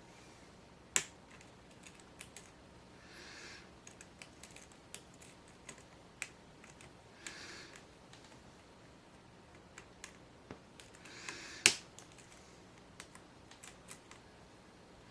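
Small, irregular sharp clicks of a lock pick and tension wrench working the pins of a padlock with a Yale-style keyway and spool security pins. A louder click comes about a second in and another near the end.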